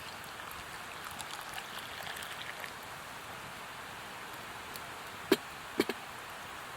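Wood campfire crackling over a steady hiss, with light ticks early on and three sharp pops about five to six seconds in.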